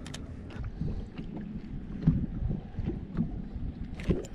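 Small waves slapping and sloshing against a fishing boat's hull, with wind buffeting the microphone.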